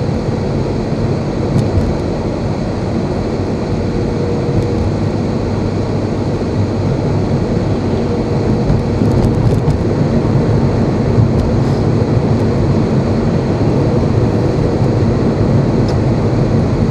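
Steady road and engine noise inside a moving car's cabin: a low rumble from tyres and engine with a faint steady hum.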